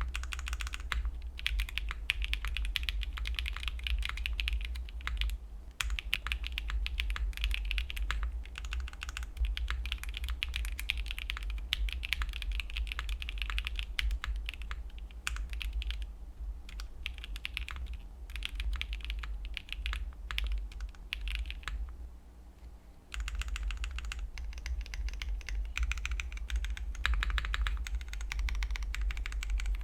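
Typing on a QK60 60% mechanical keyboard with stock factory-lubed WS Red linear switches on an FR4 plate, with TX stabilizers and DMK keycaps, built without foam and with tape on the flex cuts: a steady run of keystrokes in quick bursts, pausing briefly about two-thirds of the way through.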